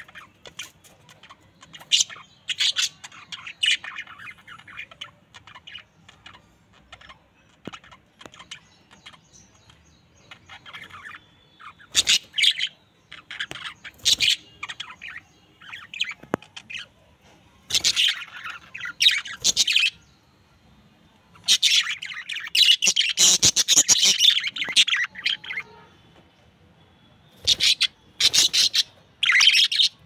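Budgerigars chirping and chattering in short bursts, busiest and loudest for a few seconds a little past the middle.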